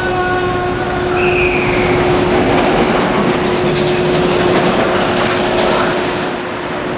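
Kraken, a Bolliger & Mabillard steel roller coaster, its train rushing past on the track: a rushing rumble that swells after about a second and fades away near the end, over a steady hum.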